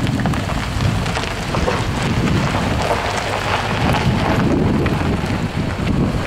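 Steady rough rumble of wind buffeting the camera microphone, with scattered faint crackles.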